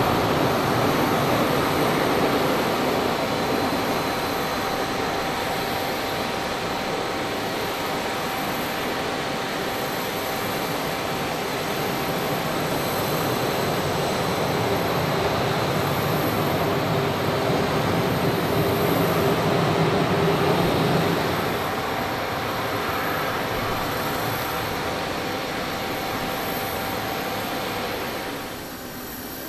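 Boeing 737-400's CFM56-3 turbofan engines running at taxi power as the airliner taxis past: a steady jet noise with a thin whine. The sound drops abruptly near the end.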